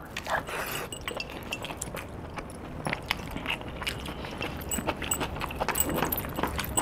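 Close-up eating sounds of a man chewing a mouthful of rice and chicken, with many small wet smacks and clicks from his mouth and from licking his fingers.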